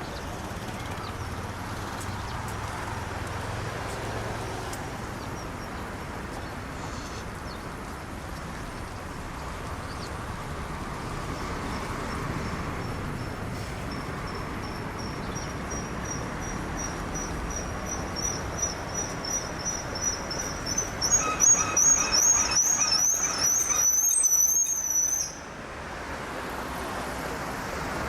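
Steady urban traffic noise. A thin high squeal creeps slowly up in pitch, then turns loud and wavering for about four seconds near the end before cutting off suddenly.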